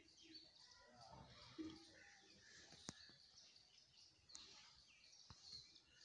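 Near silence: faint outdoor ambience with small birds chirping now and then and a couple of faint clicks.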